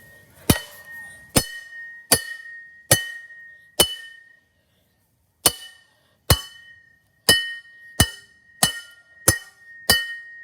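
Hammer blows on a ceiling fan's metal blade brackets, about a dozen sharp strikes roughly one a second with a short pause midway, each leaving a bright metallic ring at the same pitch. The brackets are not giving way.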